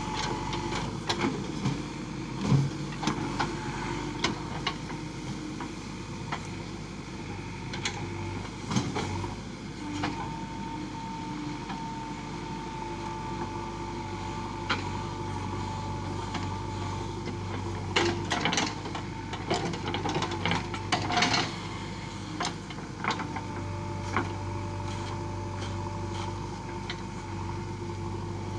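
JCB 3DX backhoe loader's diesel engine running steadily under load while the backhoe digs a trench, with a thin steady whine coming and going. Scattered sharp knocks and clanks from the bucket working the soil, most frequent about two-thirds of the way through.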